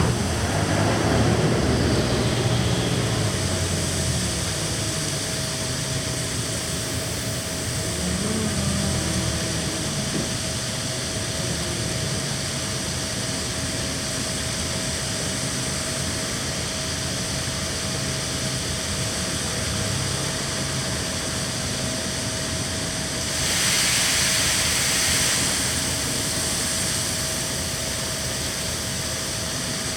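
Large harvest machinery running steadily during corn harvest, a constant engine drone with a steady whine over it. A louder hissing rush lasts a couple of seconds about three-quarters of the way through.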